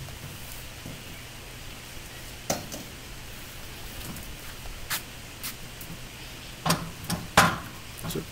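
Scattered sharp knocks and clanks of steel parts being handled against the steel frame of a concrete block moulding machine, several in quick succession near the end, over a steady background hiss.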